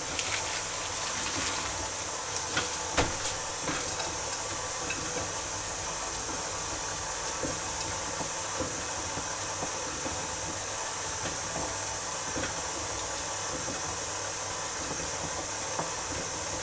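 Steady hiss throughout, with a few crinkles and taps in the first few seconds as a sheet of puff pastry is peeled off its baking paper and laid into a ceramic pie dish, then soft handling as it is pressed in by hand.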